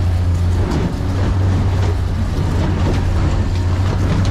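Boat engine running steadily under way at trolling speed: a steady low hum under a constant rushing noise.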